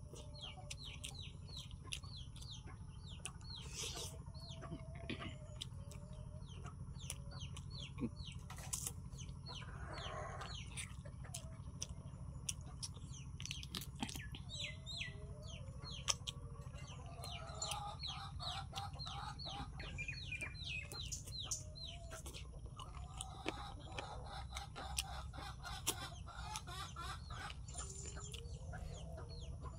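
Wet chewing and mouth clicks of a man eating rice and curry by hand, over steady background birds: rapid, high, falling chirps throughout and lower wavering calls that come and go.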